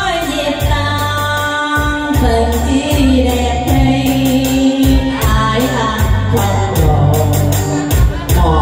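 A woman singing a Vietnamese song into a microphone over backing music with a steady beat.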